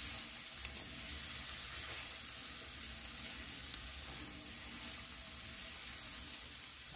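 Diced celery and onion sizzling steadily in butter in a cast-iron skillet, being sweated rather than browned, with a spatula stirring them and giving a few faint ticks against the pan.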